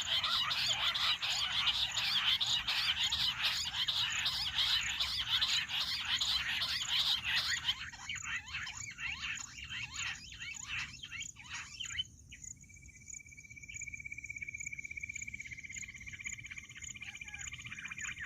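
Bush quail calling: a dense, rapid chattering chorus that breaks up and fades about eight seconds in. A long, steady high trill follows near the end.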